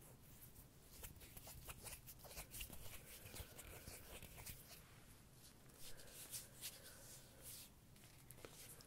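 Quiet, irregular scratchy rustling and light brushing close to the microphone, a string of soft ticks and swishes typical of ASMR brushing and hand-movement triggers.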